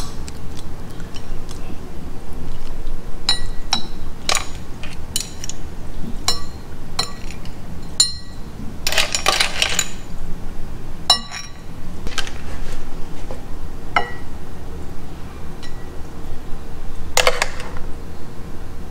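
Metal spoons clinking and tapping against a metal ring mold, ceramic plates and a stainless steel pan while food is plated: a string of short, ringing clinks, with two longer, rougher scraping sounds, one about halfway through and one near the end.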